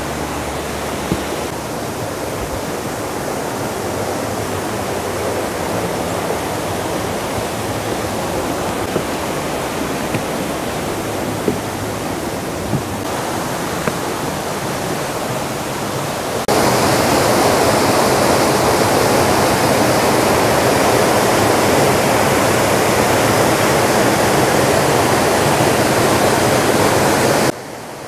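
Rushing stream water, a steady hiss that becomes abruptly louder a little past halfway through.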